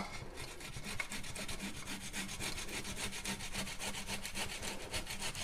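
Boiled potato being grated on a metal box grater: quick, even rasping strokes of the potato rubbing down the grater's cutting face.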